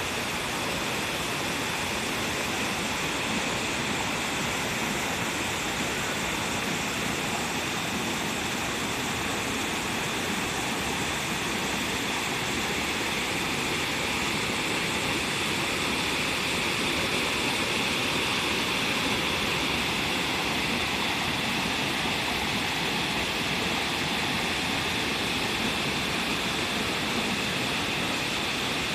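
The Kibune River, a mountain stream, rushing steadily with an even, unbroken noise.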